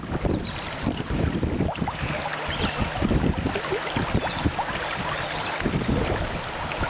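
Wind buffeting the microphone in uneven gusts over the steady rush of river water.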